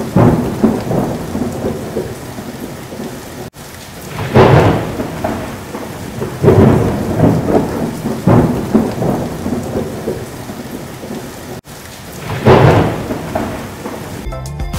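Strong storm wind buffeting the microphone in loud gusts every couple of seconds, over a steady rush of wind and rain. The sound cuts out briefly twice.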